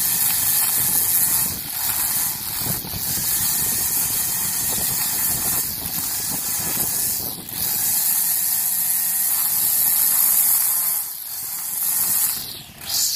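Stihl FS 91 R string trimmer running at high throttle, its spinning nylon line whirring as it cuts grass along a concrete walk edge. The throttle eases off briefly a few times, with the deepest dip near the end.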